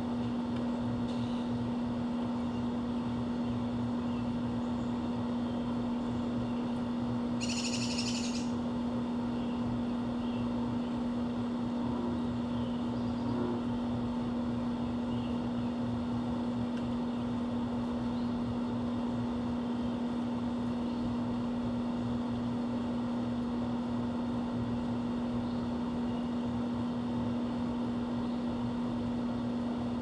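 A steady low hum under outdoor background noise, with one short, harsh bird call about eight seconds in and a few faint chirps here and there.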